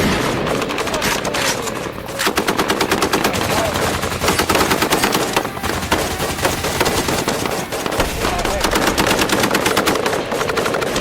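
Automatic gunfire in long, rapid bursts, with shots following each other many times a second.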